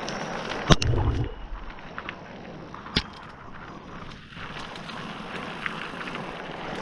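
Mountain bike rolling fast down a loose dirt trail: a steady rush of tyres on dirt and wind on the microphone, with rattles and sharp knocks as the bike jolts over bumps, the loudest with a low thud about a second in and another near three seconds in.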